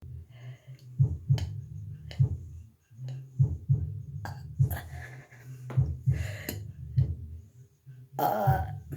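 A string of short, sharp clicks and thumps over a low hum, then a girl's loud burp with a wavering pitch starting about eight seconds in.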